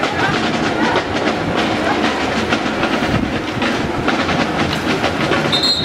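Water polo game in a pool: a steady din of crowd voices with water splashing, and a short, high referee's whistle near the end.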